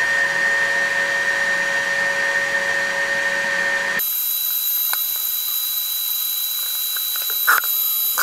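Milwaukee M18 FUEL PACKOUT 2.5-gallon cordless wet/dry vacuum running with its hose sealed under water, straining to lift water up the hose, with a steady whine. About four seconds in, the whine switches abruptly to a thinner, higher pitch as the vacuum reaches its limit and stalls.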